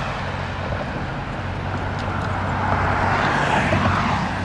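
Road traffic passing alongside, its tyre and engine noise swelling to a peak about three seconds in and then easing, over a steady low hum.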